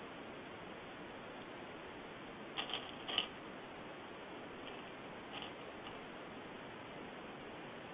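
A few light clicks over a steady background hiss: a short cluster about two and a half to three seconds in, and two fainter ones a little later.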